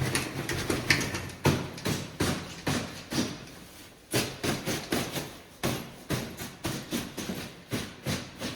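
Snow being beaten and brushed off a backpack by hand: a long, irregular run of quick dull slaps and swishes, roughly two a second.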